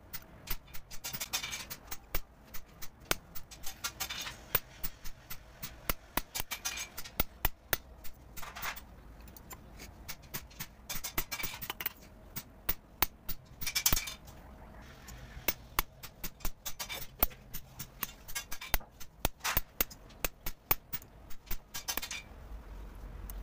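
Light metal taps on brass sheet from hand tools, a few a second at an uneven pace, with brief scraping sounds now and then.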